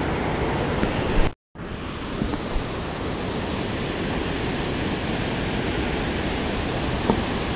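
Steady rush of high river water flowing at a lock, a constant even roar that drops out briefly about a second and a half in.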